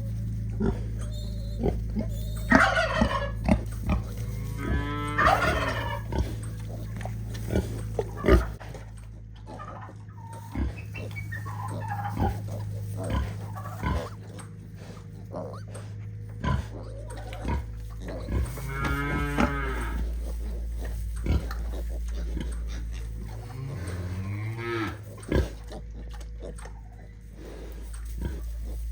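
Farm animals calling: four drawn-out, low calls, the last one rising in pitch, with scattered sharp clicks over a steady low hum.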